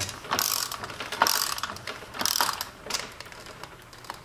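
Hand ratchet wrench clicking in repeated back-strokes, about one a second, as a nut is tightened on a track cog wheel's shaft. The strokes die away about three seconds in.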